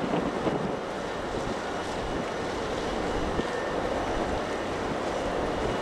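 Steady low rumble of the RORO cargo ship Daiichi Haru Maru under way, mixed with wind on the microphone.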